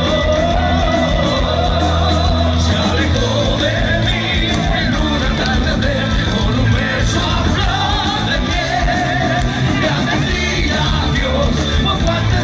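Live rock band playing a song: a singing voice carries a wavering melody over electric guitars, bass and drums.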